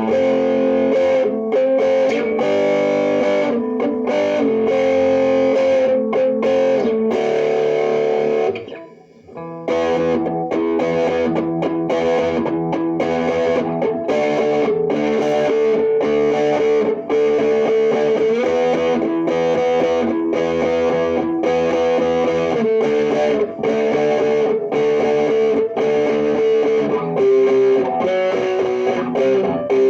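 Electric guitar played through a one-knob EHX-style fuzz pedal turned almost fully up, strumming distorted chords into an amp. The playing stops for about a second around nine seconds in, then carries on.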